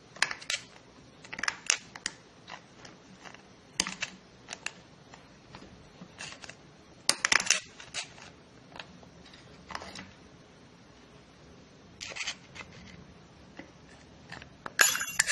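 Steel screwdriver clicking and scraping against a C-clip and the splines of an automatic transmission's output shaft as the clip is pried out of its groove: scattered metal clinks and short scrapes, the loudest near the end.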